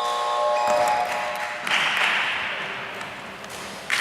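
Electronic scoreboard buzzer in a sports hall sounding a steady, multi-toned blare that cuts off about a second in, likely marking the end of the quarter. Then a rush of noise from the court rises and slowly fades, with a sharp knock near the end.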